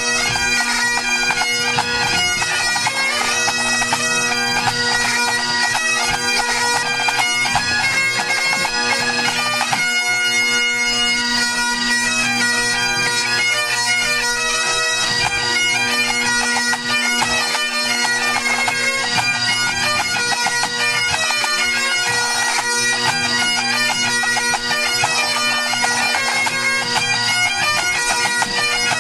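Great Highland bagpipes of a pipe band tuning up: a steady drone under chanters playing.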